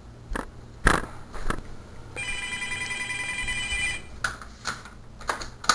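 An electronic ringer sounds a warbling ring for about two seconds, starting about two seconds in. Several sharp knocks come before and after it, the loudest about a second in and at the very end.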